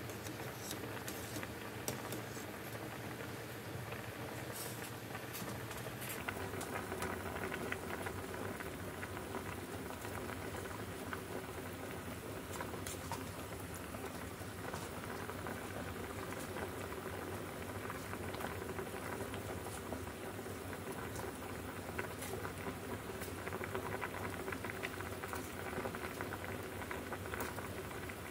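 A pot of liquid at a rolling boil, bubbling and crackling steadily, growing a little fuller about six seconds in.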